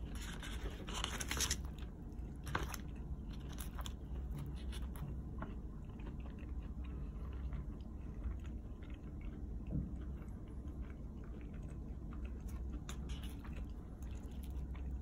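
A person chewing a mouthful of pineapple-and-cheese pizza close to the microphone: many small wet mouth clicks, with a cluster of louder ones in the first two seconds and again near the end.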